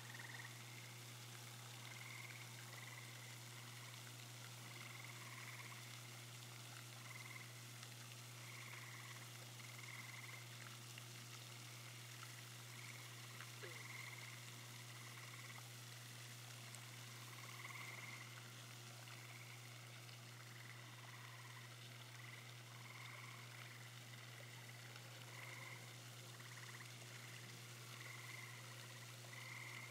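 Frogs calling faintly, short calls repeating roughly once a second, over a steady low hum.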